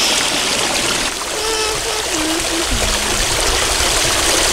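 Water rushing and trickling over rocks in a small stream cascade, steady throughout. In the middle, three short pitched tones step downward one after another.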